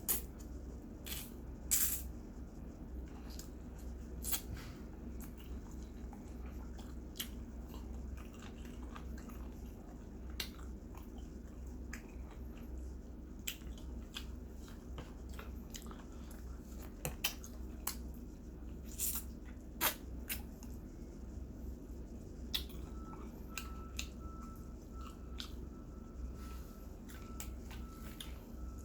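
Close-up chewing and biting of roast chicken, with scattered small crunches and mouth clicks over a steady low hum.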